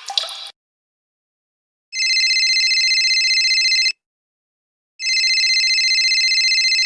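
Telephone ring sound effect: two rings of about two seconds each, a second apart, each a steady high electronic tone with a fast trill.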